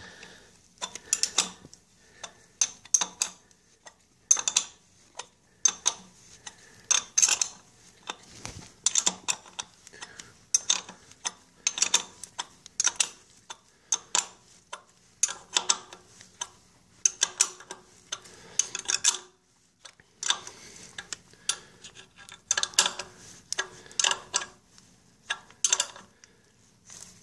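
Short, irregular metallic clicks and clinks of a 13 mm wrench worked stroke after stroke on a bolt, drawing a Ford 3000 tractor's power steering reservoir housing up evenly against the pump.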